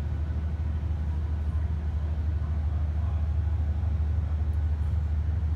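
Steady low rumble that neither rises nor falls, with no distinct events in it.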